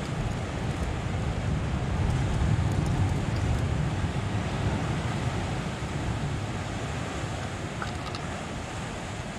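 Surf breaking on the rocks, a steady low rush with wind buffeting the microphone; the rush swells about two to three seconds in.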